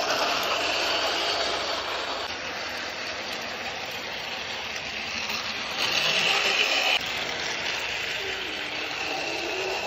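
Battery-powered toy train's small electric motor whirring steadily as the train runs around plastic track, with its wheels rattling over the rail joints. The sound gets louder for about a second around six seconds in, then drops suddenly.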